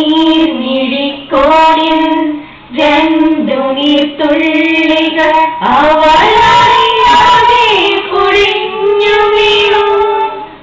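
A girl singing solo in held phrases with short breaks between them; the last phrase is the longest. No instruments are heard with her.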